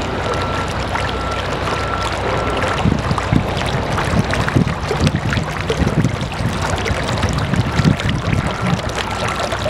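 Water welling up out of a hole in the top of a boulder fountain, bubbling and splashing steadily over the stone, with louder low gurgles through the middle.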